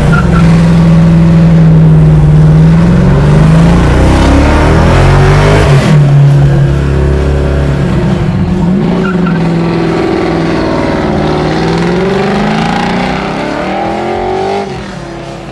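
427-cubic-inch stroked LS3 V8 of a 1969 Camaro revving hard, heard from inside the cabin. Its pitch climbs and falls several times, with a sharp break about six seconds in, and it drops away near the end.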